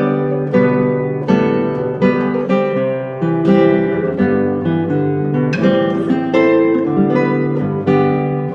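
Instrumental background music played on acoustic guitar, a run of plucked and strummed notes with no singing.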